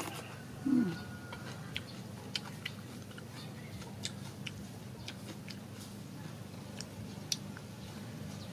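A person chewing food close to the microphone, with scattered small mouth clicks and lip smacks. A short 'mm' from the eater comes just under a second in.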